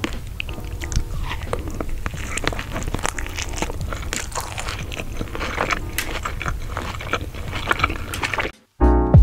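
Close-miked eating sounds: bites into a crisp fried taco, then steady crunching and chewing with many sharp crackles. The chewing stops about eight and a half seconds in, and music starts just before the end.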